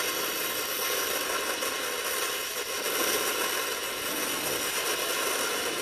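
Metalworking tool running steadily on steel: an even, harsh hiss with a few steady tones riding above it.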